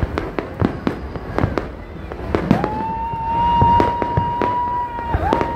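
Fireworks display: shells going off in a rapid string of sharp bangs and crackles. Through the second half a long, steady, high whistle sounds; it dips briefly and resumes near the end.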